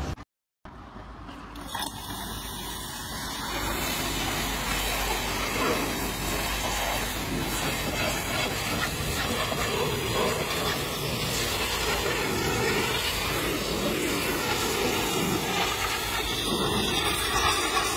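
Pressure washer jet spraying water onto the foam-covered rear of a box truck: a steady hiss of spray. The sound drops out briefly near the start, comes back, and gets louder about four seconds in.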